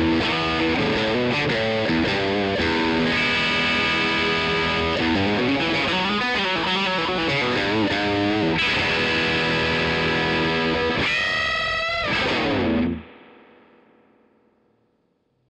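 Epiphone LP100 electric guitar played with distortion through a Hughes & Kettner amplifier: a run of lead lines and chords ending in a wavering vibrato note. The playing stops abruptly about thirteen seconds in, and the last ring fades away to near silence.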